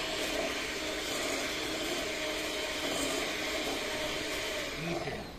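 Handheld electric mixer running steadily as it beats a cheesecake mixture in a glass bowl, stopping about five seconds in.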